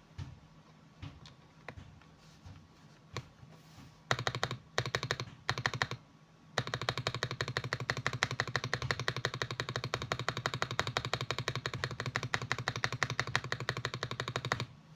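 Lubed Akko mechanical keyboard switches in a GMK67 keyboard being typed on. A few single keystrokes come first, then short bursts of fast typing about four seconds in, and after a brief pause a long run of rapid, continuous typing that stops just before the end.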